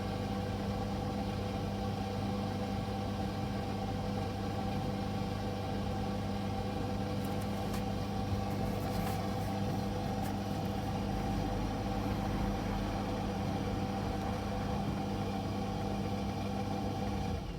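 Servis M2110 vented tumble dryer running a drying cycle: a steady, even motor and fan hum, with a few faint light ticks midway.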